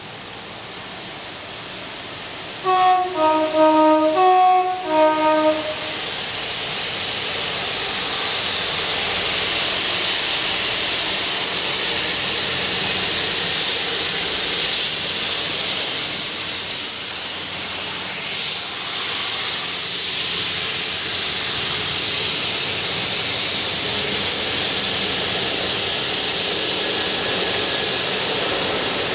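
Class 66 diesel locomotive's two-tone horn sounding twice in quick succession, about three seconds in, each blast a higher note falling to a lower one. Then the locomotives pass close by: the EMD two-stroke V12 diesel engines and the wheels on the rails make a loud, steady rush.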